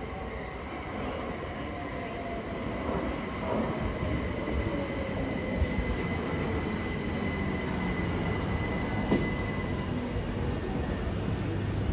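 c2c Class 357 Electrostar electric multiple unit running into the platform, growing louder as it nears, with a steady high-pitched squeal from its running gear that fades out near the end. Two sharp knocks come about halfway through and again about three-quarters through.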